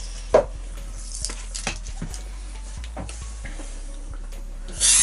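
Scattered small clicks and knocks of handling over a low steady hum, with one sharper knock shortly after the start. Just before the end a cheap handheld rotary tool switches on and spins up, its high whine rising.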